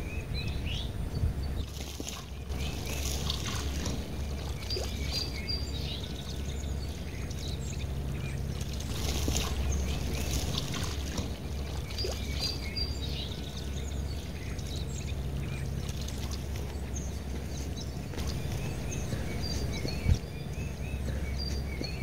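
Water trickling and splashing, with small birds chirping in short, repeated calls over a steady low hum.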